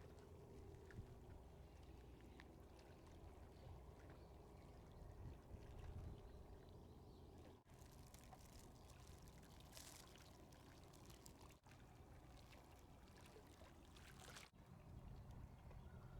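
Faint low rumble of a small ferry boat's engine, with water pouring and splashing around the hull; the sound breaks off sharply three times.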